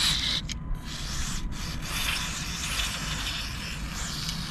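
Aerosol carb cleaner sprayed through its thin straw nozzle into the passages of a Suzuki 2.5 hp outboard's carburettor: a steady hiss, broken briefly twice near the start. The spray is flushing clogged deposits out of the carburettor's jets and passages.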